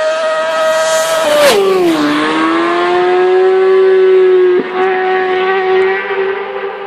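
Racing motorcycle passing flat out: a high, steady engine note as it approaches, a rush and a sharp drop in pitch as it goes by about a second and a half in, then a lower steady note as it pulls away.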